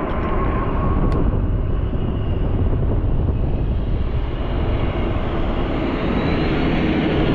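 Steady wind rushing over the microphone of a moving e-bike, heaviest and most rumbling in the low range, with faint road noise.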